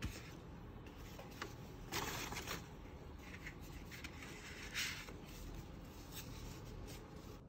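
Soft rustling and scraping of paper and cardboard in a few short bursts as a paper coffee cup is handled and lifted out of its cardboard cup holder.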